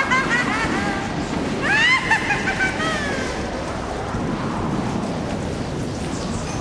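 Spooky Halloween sound-effects recording: a steady rushing noise, with a cluster of high, arching cries from about two seconds in that fade out by about three seconds.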